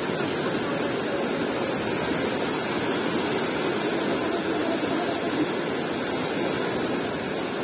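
Fast river water rushing steadily, with white water churning around a bridge pier: an even, unbroken hiss.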